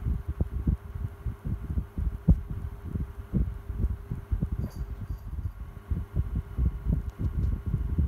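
Tronic electric desk fan running, its airflow buffeting the microphone in an uneven low rumble, with a steady motor hum underneath.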